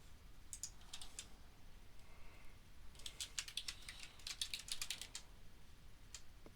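Computer keyboard typing: a few keystrokes, then a quick run of rapid keystrokes, faint.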